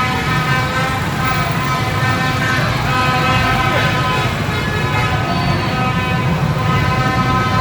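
Dense crowd of motorbikes and cars running, with many horns sounding at once in steady, overlapping tones over a low engine rumble.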